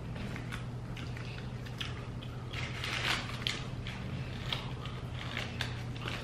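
Close-miked eating sounds: chewing and handling of food, a scatter of small clicks and crinkles over a steady low hum.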